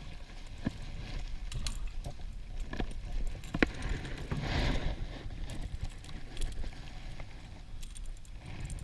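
Handling noises in a small plastic fishing boat: scattered sharp knocks and clicks, with a brief rushing noise about four and a half seconds in, over a steady low rumble.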